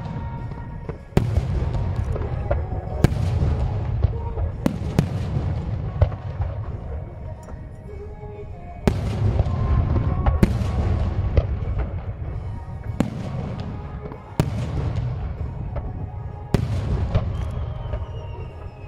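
Aerial firework shells bursting in quick succession, a dozen or so sharp bangs over a continuous low rumble of launches and booms. A faint falling whistle comes near the end.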